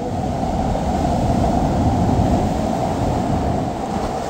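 Rough surf breaking on a rocky shore, mixed with wind rumbling on the microphone: a loud rushing noise that swells about halfway through.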